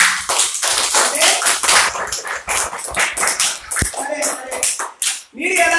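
A group of children clapping their hands, with a few voices over it; the clapping stops about three and a half seconds in, and children's voices take over near the end.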